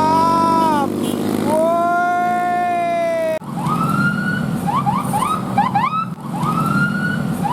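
Indonesian bus 'telolet' multi-tone horn playing a tune over the bus's running engine. Long held notes break off abruptly about three and a half seconds in. A new phrase follows: a long rising swoop, then a quick run of short rising chirps, then another swoop.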